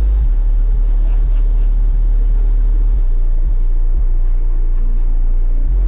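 Very loud deep bass played through a car audio system's 18-inch subwoofers, a 40,000-watt build running at about 32,000 watts. The low bass tone holds steady, shifts slightly about three seconds in, and changes again near the end.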